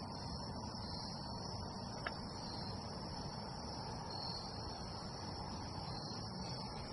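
Steady high-pitched insect chorus, with a low rumbling noise underneath and a single faint click about two seconds in.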